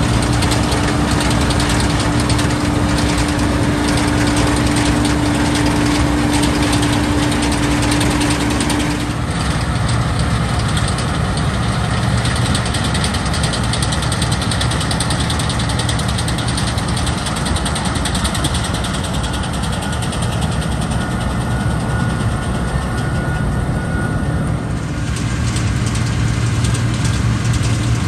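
Massey Ferguson 760 combine's V8 engine and machinery running steadily while harvesting. About nine seconds in, a steady hum stops and the higher noise thins out; it fills out again near the end.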